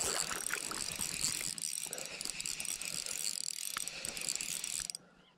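Shimano Sephia 3000S spinning reel ratcheting and whirring with a fish on the line as a hooked chub is played. The sound is a fast run of fine ticks that cuts off about five seconds in.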